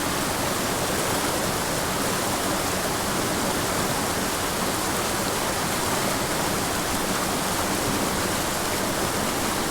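Small mountain creek rushing and tumbling steadily over boulders.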